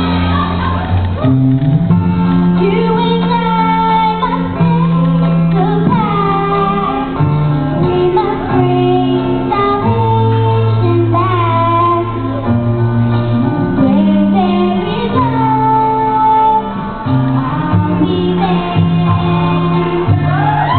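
A young girl singing a song into a handheld microphone, her melody held and bending over sustained instrumental chords.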